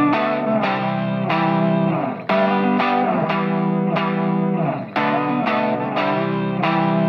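Outro music led by an electric guitar with effects, playing ringing sustained chords in a phrase that repeats about every two and a half seconds, with a short drop in the sound about two seconds in and again near five seconds.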